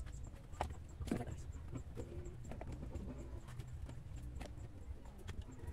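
Chunks of stone and rubble dropped by hand into a bucket: a few sharp knocks and clatters with gaps between them, the loudest about a second in.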